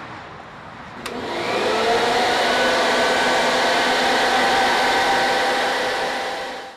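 A handheld electric blower switches on with a click about a second in, then runs steadily as a loud rush of air with a motor whine, fading out at the end.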